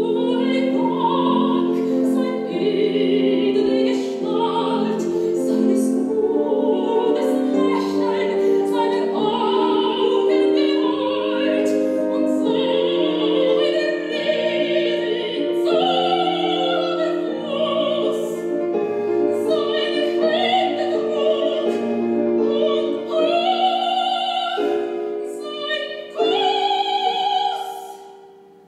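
Operatic soprano singing a song with vibrato, accompanied by grand piano, played back over loudspeakers in a lecture hall. The music ends and fades out in the last second.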